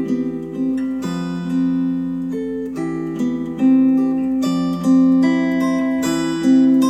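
Recorded music of a plucked acoustic guitar, with new notes and chords struck about every half second to second.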